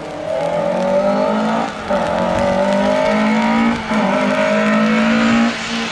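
Lada 2107 rally car's four-cylinder engine accelerating hard. Its pitch rises in three pulls, broken by two short gaps where the driver shifts up, then the engine drops off near the end.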